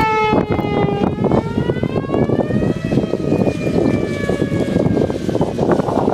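Outdoor tornado warning siren wailing, its pitch rising for a couple of seconds, then slowly falling as it fades under a steady rush of rain.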